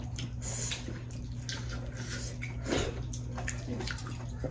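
Wet eating sounds: fingers squishing and mixing dhido through soupy curry in steel plates, a scatter of short wet smacks and squelches.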